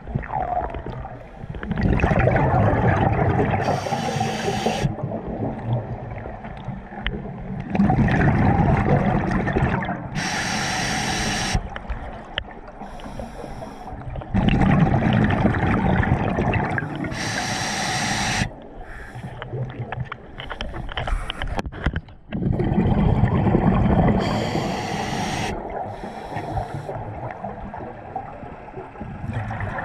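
Scuba diver breathing underwater through a regulator: four slow breaths, each a loud bubbling rumble of air with a short hiss, coming about every six to seven seconds.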